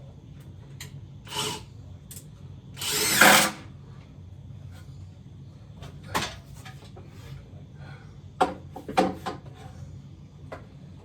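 A power drill runs in one short burst about three seconds in, with scattered clicks and knocks before and after it over a steady low hum.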